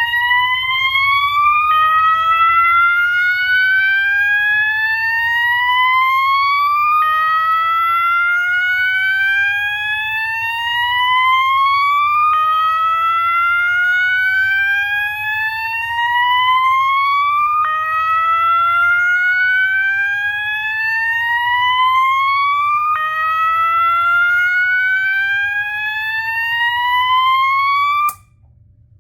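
System Sensor MASS2475ADA fire alarm sounder sounding a slow-whoop tone: a rising sweep that climbs for about five seconds, drops back and climbs again, over and over. It cuts off suddenly near the end.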